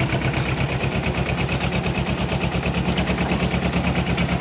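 Yanmar YM2000 compact tractor's two-cylinder diesel running under load as it drags a landscape rake, a steady rapid chugging pulse.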